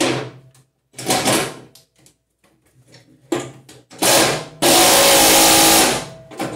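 Small DeWalt cordless impact driver run in three or four short bursts, then one long, loud run of about a second and a half near the end, driving a bolt down into a mower deck's brake assembly.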